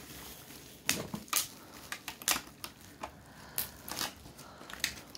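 Irregular sharp clicks and taps of hard plastic, a dozen or so, as a children's toy makeup kit and its pieces are handled.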